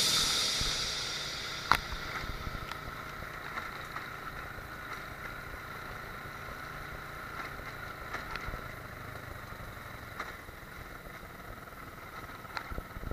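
Motorcycle riding along a rough village road: a faint steady run of engine and road noise, with a few short sharp knocks along the way.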